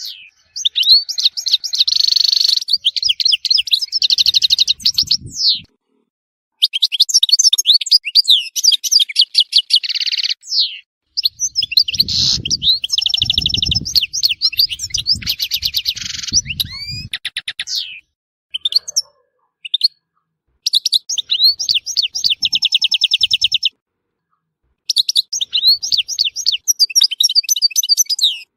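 European goldfinch singing: fast twittering song of rapid trills and sweeping notes, in phrases several seconds long broken by short pauses, with only scattered notes about two-thirds of the way through.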